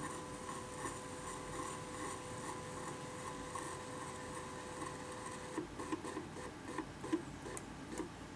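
Stepper motors of a simple home-built CNC plotter running with a steady whine, breaking off about five and a half seconds in into a run of irregular ticks and clicks as the machine moves in short steps.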